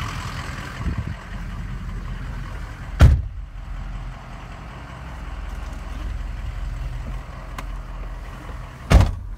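6.0 Power Stroke turbo-diesel V8 of a 2004 Ford F350 idling steadily with a low, even rumble. Two heavy thumps of the truck's cab doors being shut come about three seconds in and near the end.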